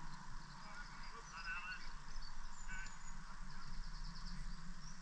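Short honking bird calls, a cluster about a second in and another a little later, with faint high chirping over a steady low hum.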